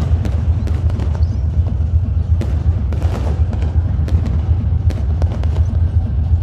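A fireworks display bursting in quick succession, with many sharp cracks and bangs over heavy, bass-laden music.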